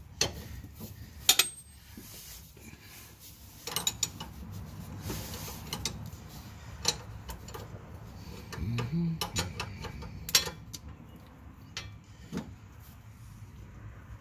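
Metal hand wrenches clicking and knocking against the fuel filter's steel line fitting as a flare nut wrench and an adjustable wrench work to break the nut loose. The sharp clicks come irregularly, a few clearly louder than the rest.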